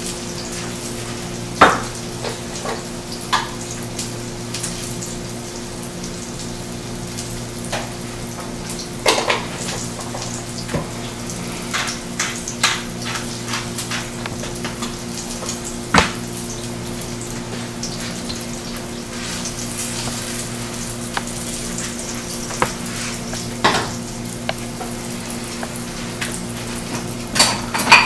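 Pork roast searing in a hot pan, a steady sizzle over a steady low hum. Scattered clicks and knocks come from utensils and dishes, with a short run of quick ticks from a pepper mill grinding about halfway through.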